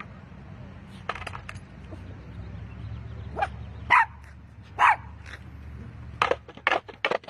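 A dog barks a few times, loudest about four and five seconds in, over the low rumble of skateboard wheels rolling on concrete. The rumble stops about six seconds in, and a quick run of sharp knocks and clatters follows as the board drops down a ledge.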